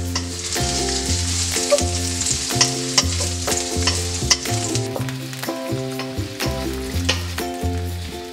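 Sliced garlic and ginger sizzling in hot oil in a wok, stirred with a wooden spatula that scrapes and taps against the pan. Background music plays underneath.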